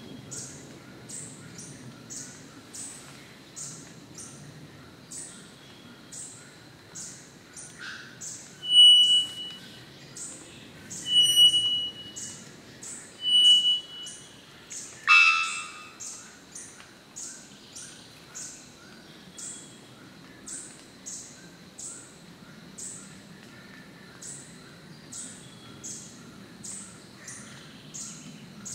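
A male three-wattled bellbird calling: three loud, short, pure whistles about two seconds apart, then a single loud harsh note. Under the calls runs a steady high ticking about twice a second.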